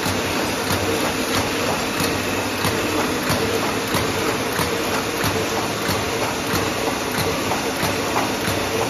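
Automatic paper embossing machine running, feeding sheets through with a steady hum and a rapid, regular clacking.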